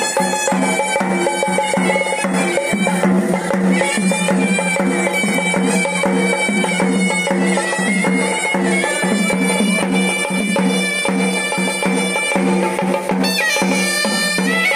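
Sri Lankan temple music: a horanewa, a nasal double-reed pipe, plays a wavering melody over a steady droning note, with continuous traditional drumming beneath.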